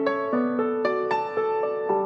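Background music: a gentle piano melody, notes struck every quarter to half second over held lower notes.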